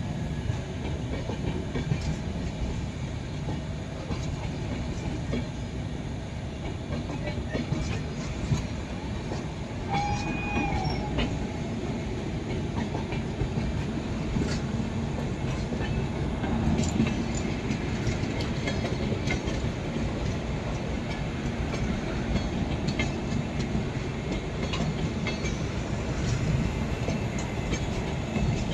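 Sarnath Express passenger train running past, its coaches rumbling steadily with many sharp clicks and clatters from the wheels over the rails. A brief high tone sounds about ten seconds in.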